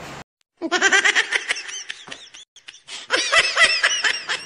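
Inserted laughter sound effect: a run of high-pitched 'ha-ha-ha' laughs, a short pause, then a second, higher burst of laughter.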